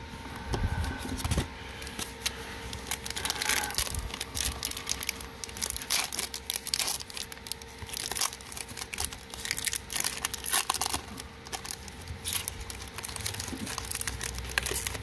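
Foil wrapper of a Magic: The Gathering collector booster pack crinkling and tearing as it is pulled open by hand: a dense, irregular run of crackles and rustles.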